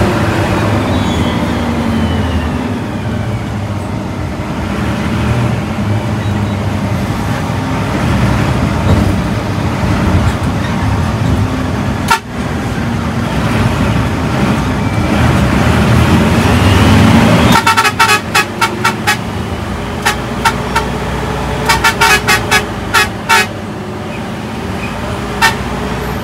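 Bus engine and road noise while under way, the engine's pitch climbing as it accelerates. About two-thirds of the way in, a horn starts sounding in rapid short blasts, in several clusters.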